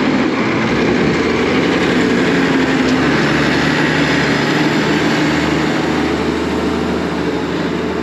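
Diesel farm tractor engine running steadily close by as the tractor drives over a corn silage pile.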